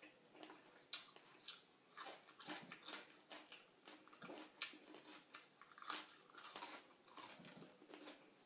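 A person chewing and eating close to the microphone: faint, irregular wet mouth clicks and smacks with the odd crunch.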